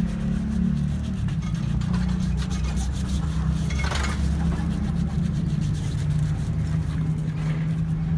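Steady low drone of a running motor throughout, with a short rubbing scrape about four seconds in as the aluminum rim is sanded by hand.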